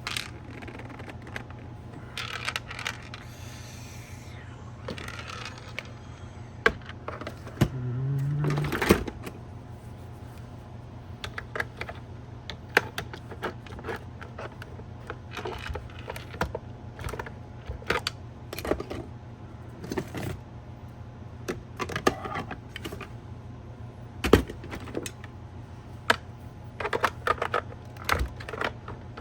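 Scattered plastic clicks, taps and small rattles as a car side-mirror bezel is pried off its clips with a plastic trim tool and the mirror housing is handled. A steady low hum lies underneath.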